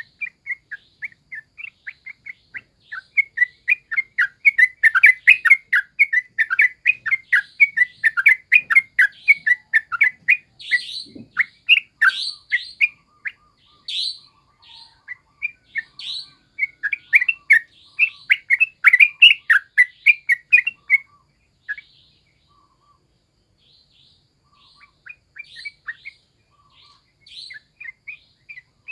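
Caged yellow-vented bulbul (trucukan) singing in rapid runs of short chirped notes, in two long loud bursts. Between the bursts come a few higher, upward-sweeping notes, and the notes grow sparse after a brief pause near the end.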